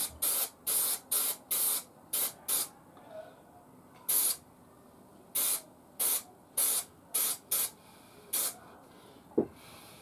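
Aerosol spray can giving a string of short hissing bursts of lacquer or varnish onto a wooden sanding drum as it is turned, sealing it before the sandpaper is glued on. The bursts come quickly at first, then further apart, and a single sharp click follows near the end.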